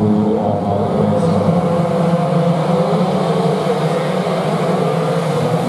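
A full grid of two-stroke 125 cc underbone race motorcycles revving together at the start line, a dense, wavering buzz of many engines, then pulling away from the line partway through.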